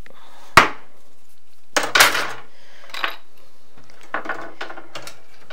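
Thin enclosure-frame rods clattering and knocking against each other and the wooden workbench as they are handled. There is a sharp knock about half a second in, a burst of clatter around two seconds, then a few lighter clicks and rattles.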